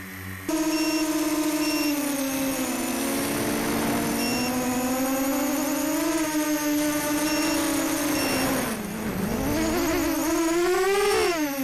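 Storm SD250 quadcopter's brushless motors and propellers spinning up sharply about half a second in as it takes off, heard close from its onboard camera. The whine rises and falls in pitch with the throttle, dips low about nine seconds in, then climbs again near the end.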